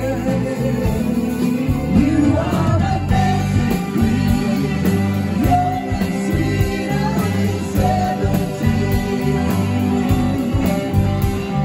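Live rock band playing loudly, full band with a steady bass and drum low end, with a voice singing over it.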